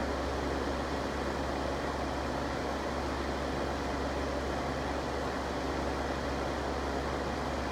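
Electric fans running steadily, blowing air with an even rushing noise and a low hum beneath it.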